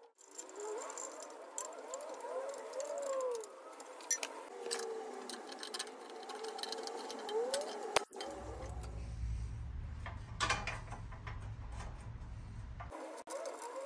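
Metal clinks, knocks and rattles as an exhaust muffler and manifold are handled and fitted onto a garden tractor's small engine, with a low rumble for several seconds in the second half.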